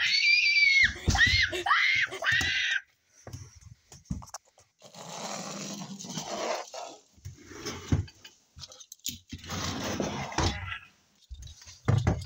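A person screams in a high, wavering voice for about three seconds. Then come quieter rustling and scuffing as a toy is handled on fabric, with a thump near the end.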